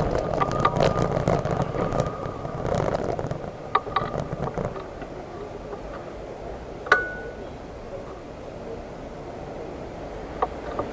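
Street background noise, heavier at first and then easing off, with a few light clicks around four seconds in and one sharp, bright clink that rings briefly about seven seconds in.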